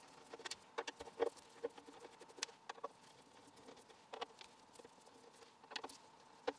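A screwdriver backing out the lid screws of a bench power supply's metal case: faint, scattered clicks and ticks, in small clusters.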